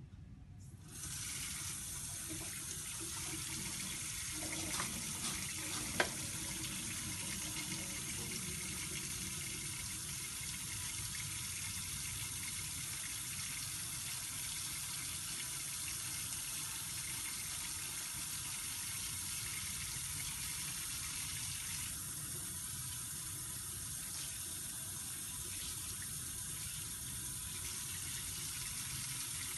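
Water from a faucet running steadily into a stainless steel sink as hands are washed under it, the tap coming on about a second in. A single short knock about six seconds in.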